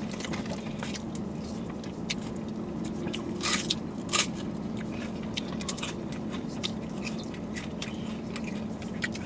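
Mouth sounds of ice cream cones being eaten: wet licking, smacking and small bites, with two sharper crunches about three and a half and four seconds in, over a steady low hum.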